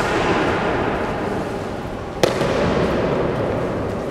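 Honour guards' boots stamping twice on a stone floor in slow ceremonial march step, about two seconds apart, each stamp sharp and echoing in the hall.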